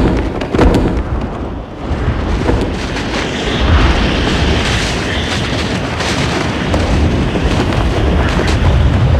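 Layered explosion and boom sound effects: a sudden loud bang at the start, another hit under a second in, then a dense, continuous rumble of blasts and crashes.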